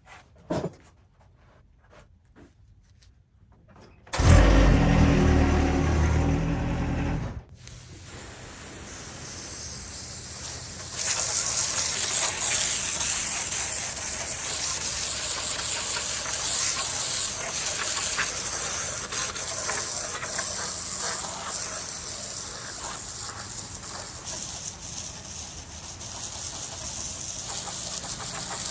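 Wood-Mizer LX55 band sawmill: a few light knocks, then about four seconds in a loud low drone that cuts off suddenly three seconds later. From about eight seconds the mill's running noise rises, and it becomes loud and steady as the band blade saws through a poplar log.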